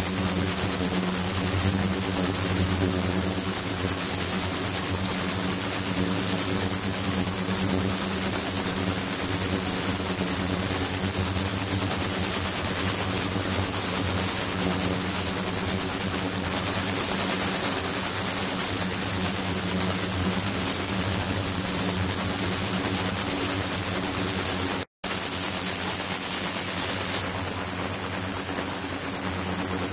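Steady electric hum of an ultrasonic water-tank setup with its liquid-circulation pump, several even tones stacked together over a hiss of running water, with a thin high whine above. The sound cuts out for an instant late on.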